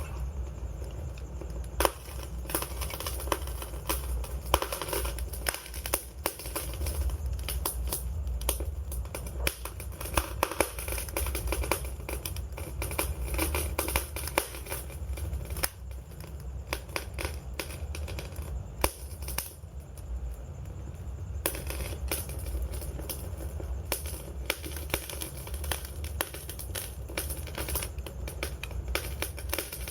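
Wood fire crackling, with a steady stream of irregular sharp snaps and pops over a low continuous rumble of the flames.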